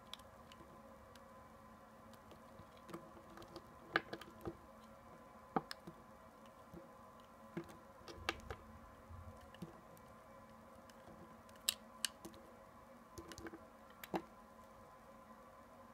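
Hands sifting through and handling cut pieces of soft glycerin soap, giving irregular light clicks and taps as the pieces knock together, several louder ones among them.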